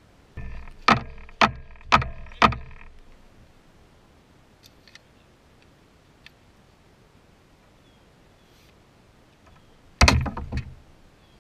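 Four sharp knocks, about half a second apart, over a brief steady hum, then a louder clatter of knocks near the end.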